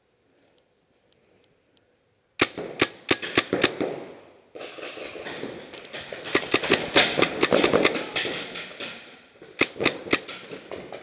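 Paintball markers firing quick strings of sharp pops in an indoor arena, starting after about two seconds of near silence, with a dense run of shots in the middle and a last few near the end.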